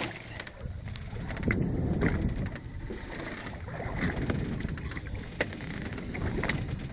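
Water sloshing against a small boat's hull, swelling and easing in waves, with a few scattered light clicks and knocks.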